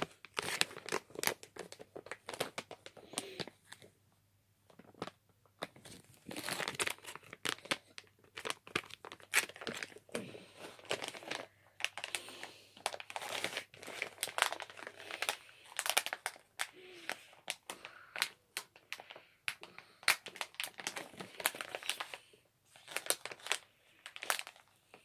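Crinkly plastic packaging of a boxed stationery set crackling in irregular bursts as it is squeezed, twisted and pulled at by hand while trying to tear it open, with a quieter pause about four to five seconds in.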